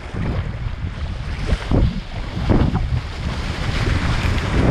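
Wind buffeting a kayak-deck action camera's microphone as a low, steady rumble, with water rushing along the sea kayak's hull and irregular splashes from paddle strokes in choppy sea.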